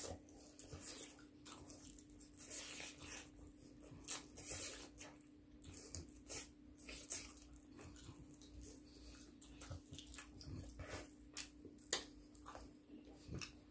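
Two people chewing and biting into spicy fried chicken: a scatter of short, irregular smacking and crunching sounds over a faint steady hum.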